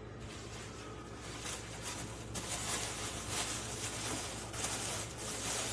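Kitchen tap running into a stainless steel sink for rinsing vegetables, a steady hiss that grows louder about two seconds in, with a plastic bag rustling.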